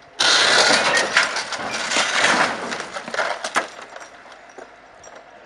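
A car dropping from a truck-mounted crane and crashing down against the truck, with a sudden loud crash and then about three seconds of crunching, cracking and scraping that die away.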